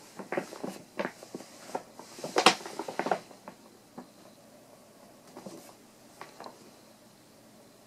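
Paper shopping bag crinkling and crackling as a cat squirms its way into it: a quick run of crackles through the first three seconds, loudest about two and a half seconds in, then only a few faint rustles.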